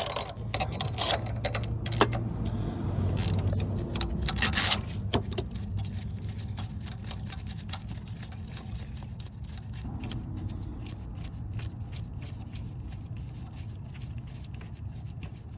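Ratchet wrench clicking and metal clinking as the nut and washers are backed off the LT1 crank hub install tool. The clicks are loud and crowded for the first five seconds, then keep on as a steady run of fainter clicks.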